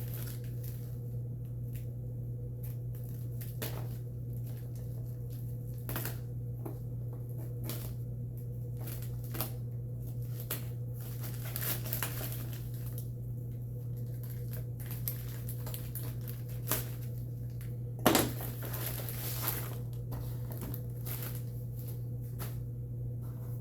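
Packaging being opened and handled: scattered crinkles, rustles and light knocks of a box and bubble wrap, with a louder crackle about 18 seconds in, over a steady low hum.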